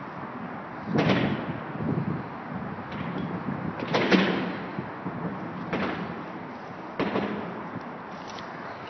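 Thumps and scuffles of two Dobermans running and play-chasing: about six sudden thuds over a steady rushing background, the loudest about four seconds in.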